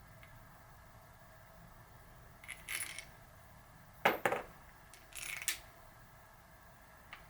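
Small metal parts clinking on a hard surface: a short jingly rattle, two sharp metallic clicks about four seconds in, then another brief rattle.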